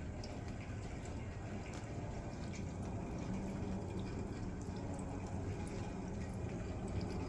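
Winter-storm precipitation falling and dripping: a steady hiss scattered with many small ticks.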